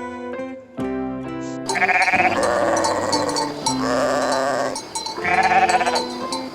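Sheep bleating: several long, quavering bleats starting a couple of seconds in, over acoustic guitar music.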